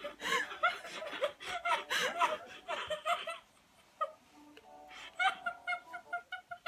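Young women giggling and laughing in quick repeated bursts for the first few seconds. After that, quieter music with short repeated notes plays back.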